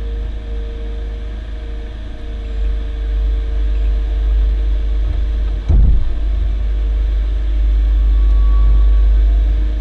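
Hydraulic excavator's diesel engine and hydraulics working, heard from inside the cab as a steady low rumble that grows louder as the arm lifts a full bucket of soil. One sharp knock sounds a little past halfway.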